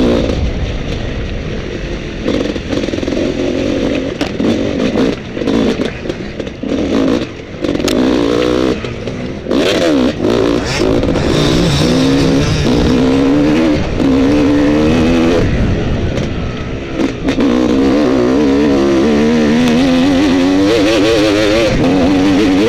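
Off-road dirt bike engine, heard from a helmet-mounted camera, revving up and down with the throttle. In the first half the engine note keeps falling away and coming back in short gaps; in the second half it runs more continuously.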